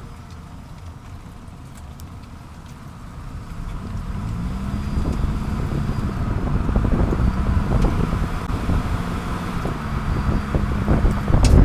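Road rumble and wind noise from a camera mounted under a 30-series Toyota Prius's bumper. About three seconds in, the car gathers speed and a low hum rises in pitch, then holds steady. A thump comes near the end.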